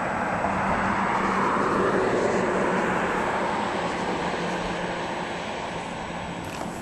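A passing vehicle: a rushing noise with a steady low hum that builds to its loudest about two seconds in, then slowly fades away.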